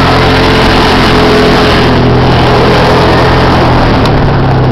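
Quad (ATV) engine running at a steady speed while riding along a gravel road, with a steady rushing noise of wind and tyres over it.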